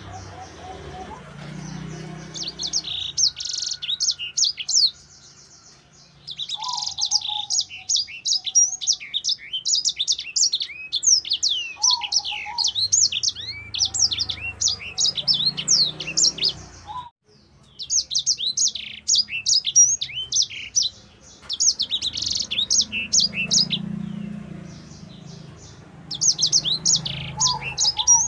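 Caged sanger (grey singing finch) singing an energetic, fast, varied twittering song of quick high chirps and trills. It comes in long bursts with a short pause about five seconds in and a brief break about two-thirds of the way through.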